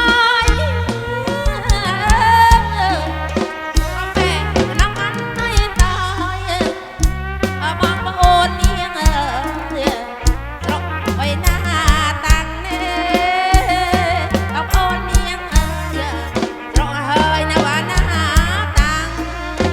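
Amplified live kantrum band music, with a steady drum beat, heavy bass and a wavering melody line over it.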